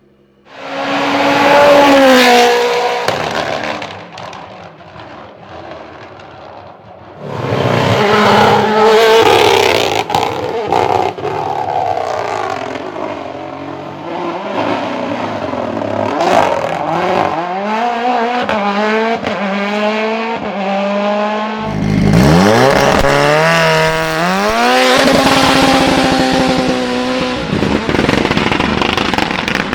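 Turbocharged race car engine revving hard, its pitch climbing again and again through the gears, with sharp exhaust pops and bangs typical of an anti-lag system. It swells suddenly loud three times, about half a second, seven seconds and twenty-two seconds in.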